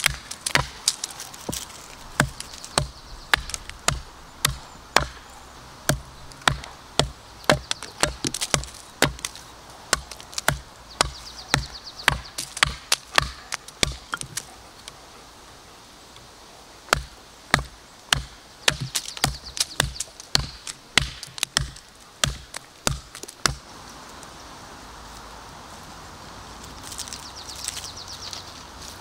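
A large, heavy Hemlock ARES bushcraft knife chopping into a green sapling, its blade biting into the wood in sharp strikes about two a second. The strikes pause briefly about halfway through, resume, and stop a few seconds before the end.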